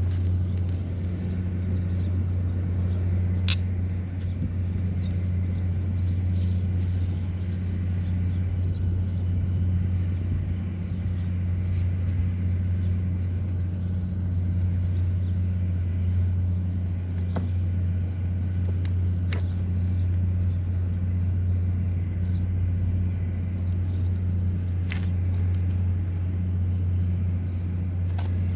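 A machine running steadily with an even, low hum, and a few faint clicks over it.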